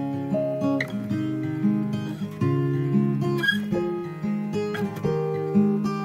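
Background music played on acoustic guitar, a run of notes at a steady pace.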